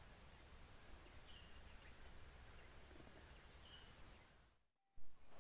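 Steady high-pitched insect chorus, with a few faint short chirps over it. Near the end the sound drops out for a moment, then a short loud thump.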